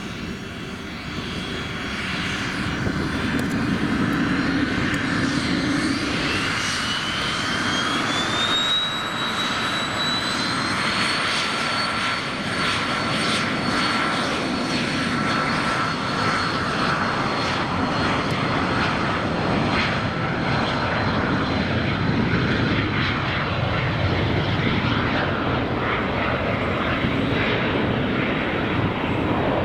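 Cessna CitationJet CJ2+'s twin turbofan engines spooling up to takeoff power: a whine climbs in pitch over about five seconds, then holds steady over loud jet noise.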